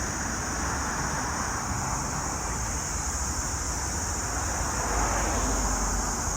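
Steady road traffic noise, swelling slightly about five seconds in.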